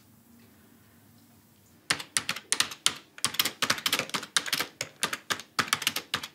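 Fast typing on a computer keyboard: a quick, uneven run of key clicks that starts about two seconds in and stops suddenly at the end.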